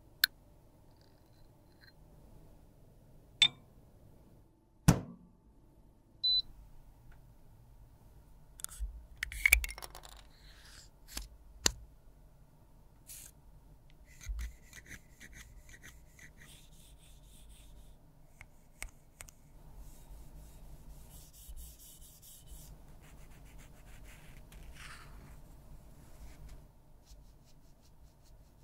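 A metal spatula scraping and smoothing soft lipstick, with several sharp taps and clicks scattered between the soft scrapes.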